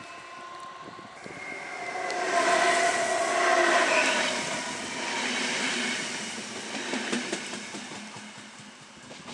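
ČD class 471 double-deck electric multiple unit passing close at speed: a whine of several tones slides down in pitch as it goes by, over rumbling rail noise. A few sharp wheel clicks come near the end as it draws away and the sound fades.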